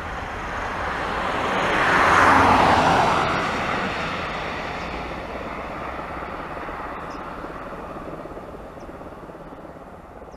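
Boeing 737 MAX 8's two CFM LEAP-1B turbofans at takeoff thrust as the jet climbs out past: a broad roar of jet noise that swells to its loudest about two seconds in and drops in pitch. It then fades steadily as the aircraft climbs away.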